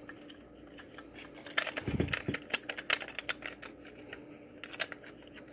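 Hard plastic multimeter case clicking and creaking as its halves are pried apart by hand: a run of small irregular snaps and clicks, with a couple of dull bumps about two seconds in.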